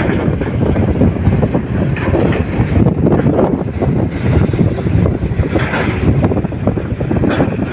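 Empty Hino dump truck driving slowly over a rough dirt track: a steady rumble from the diesel engine with rattling from the steel bed, and wind buffeting the microphone.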